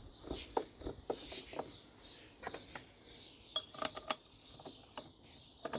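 Scattered light metallic clicks and clinks of hand tools and screws being worked on a small engine's cylinder.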